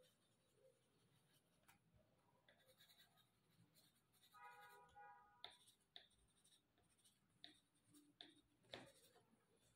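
Very faint scratching of a colored pencil shading on paper, with a run of light ticks as the strokes start and stop in the second half.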